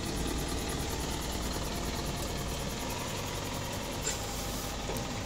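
Isuzu ELF (NPR) 4x4 tanker truck's 190 hp diesel engine idling steadily.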